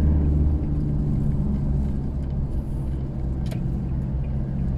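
Toyota Hilux pickup on the move, heard from inside the cab: a steady low engine and road drone with a few low hum tones. A brief click about three and a half seconds in.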